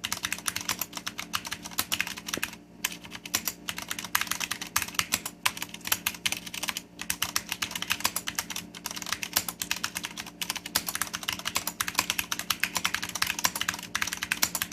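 Continuous fast typing on a Leopold FC750R mechanical keyboard with Cherry MX Red linear switches and Geek PPS dye-sublimated keycaps: a dense, irregular run of key clicks and bottom-out clacks with a few brief pauses.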